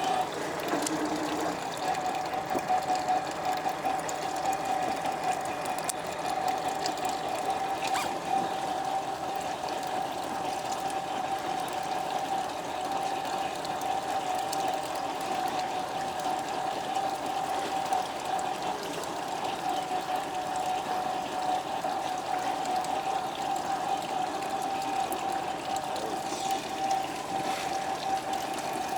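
Water running and splashing steadily, under a steady hum held at one pitch.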